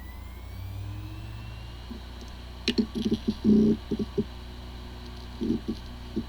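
A 3.5-inch hard drive running with a steady hum, its spin-up whine rising over the first two seconds, then a burst of head-seek clicking and chatter about three seconds in and a few shorter bursts near the end. It sounds like a healthy drive, but this one has disk firmware corruption and the computer cannot detect it.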